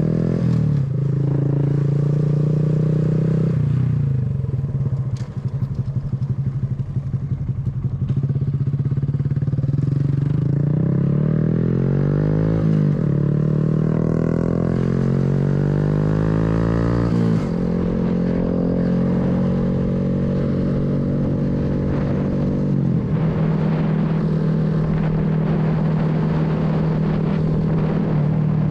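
Honda Grom's small single-cylinder engine pulling away and accelerating through the gears. The revs climb and drop at an upshift about 13 seconds in and again about 17 seconds in, then settle into a steady cruise.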